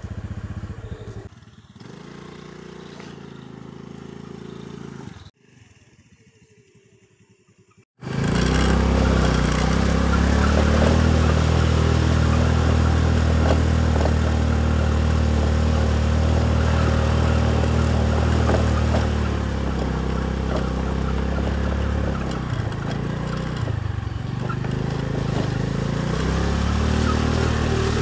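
Honda Dio scooter's engine running steadily as it is ridden. It cuts in suddenly about eight seconds in after a near-silent spell and eases off for a few seconds past the two-thirds mark.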